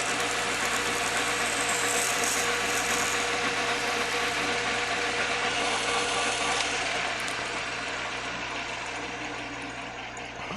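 Lathe running with a drill bit boring a hole into the spinning workpiece: a steady motor hum under a continuous rough cutting noise, which tapers off gradually over the last few seconds.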